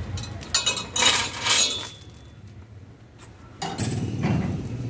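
Metal tow chain and hooks clinking and clanking as they are fitted under the front of a car, with several sharp strikes in the first two seconds. About three and a half seconds in, a low engine rumble starts suddenly.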